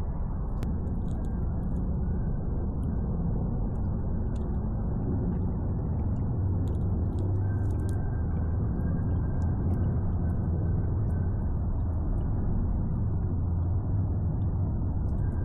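Steady low rumble of outdoor background noise with no clear single source, and a few faint ticks over it.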